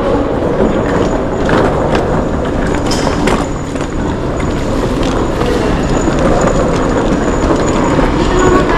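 Wheeled suitcases rolling over a hard tiled floor: a steady rumble with scattered short clicks.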